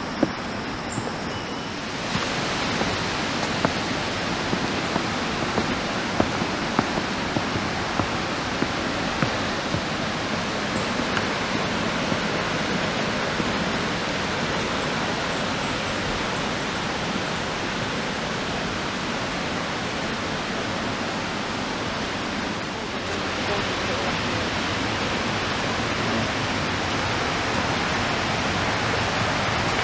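Steady rushing of the Niagara River rapids below the trail, swelling a little about two seconds in. Regular footsteps on wooden trail steps tap through the first part.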